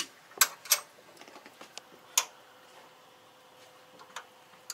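A few sharp, irregular metallic clicks and taps of hand tools on hose clamps, as a boat's seawater hose fitting is being undone. Three come in the first second, the loudest a little after two seconds, and fainter ones near the end.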